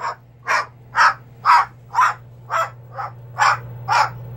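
Moluccan cockatoo giving a run of short, harsh, crow-like squawks, about two a second, very evenly spaced.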